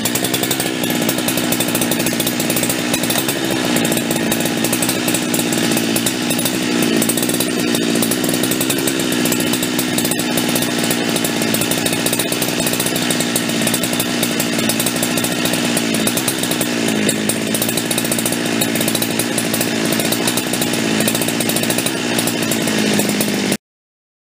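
A home-built two-stroke chainsaw running unloaded at high revs, held steady for a no-load RPM check of its carburettor tune, with slight wavers in pitch. The carburettor is set a little rich. The sound cuts off abruptly near the end.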